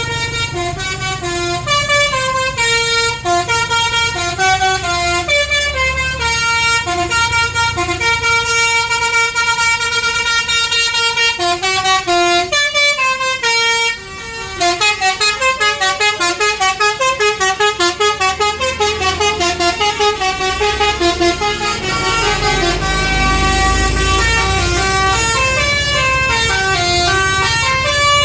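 Tour bus 'basuri' telolet horn, a multi-tone musical horn, playing a melody of stepping notes. The melody breaks off briefly about halfway, then goes on with faster, quickly repeated notes. A low engine rumble joins near the end.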